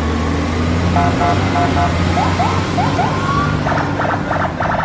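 A steady low vehicle-engine rumble with electronic beeps over it: short paired tones, then quick rising chirps about two seconds in and a rapid run of pulsed beeps near the end.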